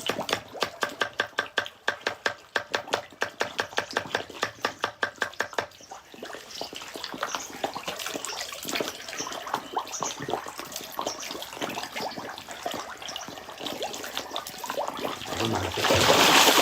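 Water sounds at the surface of a fish pond as the fish feed: at first a rapid, even slurping and splashing of about five strokes a second, then irregular splashes, with a louder rush of water near the end.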